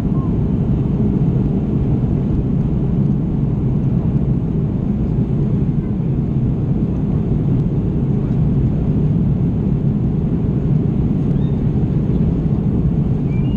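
Airbus A330 cabin noise at a window seat during the climb-out: the steady low rumble of the engines and the airflow past the fuselage, with no change in level.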